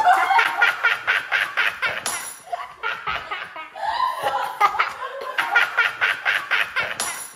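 A girl laughing hard: a long run of quick, repeated bursts of laughter.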